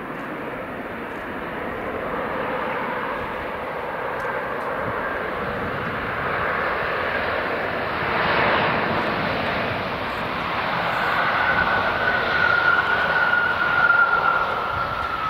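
Embraer 195 jet airliner's twin CF34 turbofans running loud during its landing rollout. The noise builds as the jet rolls closer. A high fan whine joins about two-thirds of the way in and drifts slightly lower in pitch.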